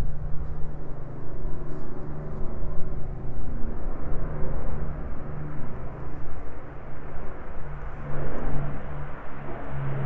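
Avro Lancaster's four Rolls-Royce Merlin V12 piston engines running as the bomber flies past, a steady low hum that grows fuller and louder about eight seconds in as it comes closer.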